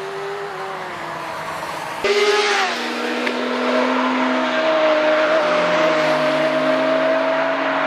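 A sports car's engine note falling gently as the car pulls away, then an abrupt cut about two seconds in to a louder sport-motorcycle engine at high revs: the pitch dips briefly, then holds a steady high note that slowly rises as the bike accelerates through a bend.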